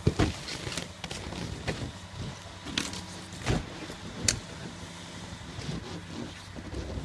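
A steady low engine hum, like an engine idling, with scattered sharp knocks and clicks over it.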